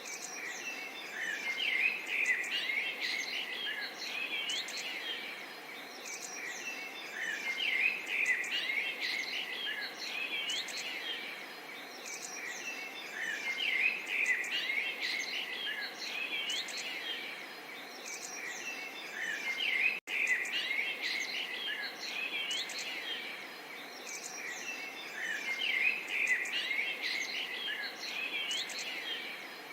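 Many small songbirds chirping and singing at once, with quick overlapping high calls and short whistled glides, over a faint steady murmur of water. The sound cuts out for a split second about two-thirds of the way through.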